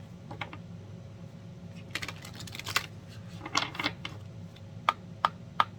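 A deck of oracle cards being shuffled by hand: bursts of rapid card clicks, then three separate sharp clicks near the end.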